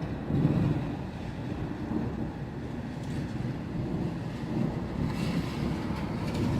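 Thunder rumbling low from a summer thunderstorm, loudest about half a second in, then rolling on as a steady low rumble.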